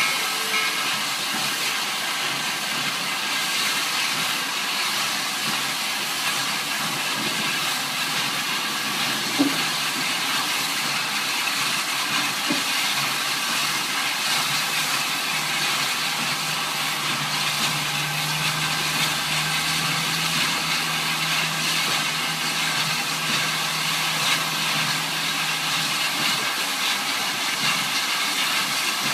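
Steady hiss of escaping steam from Western Maryland 734, a 2-8-0 steam locomotive standing on a turntable. A low steady hum joins in about halfway through and fades about ten seconds later.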